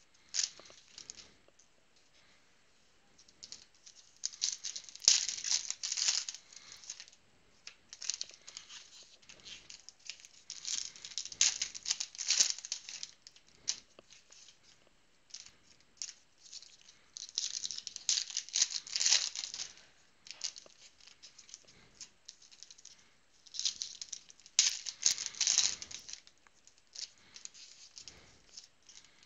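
Foil trading-card pack wrappers crinkling and tearing as the packs are opened, in bursts every few seconds, with quieter card handling between.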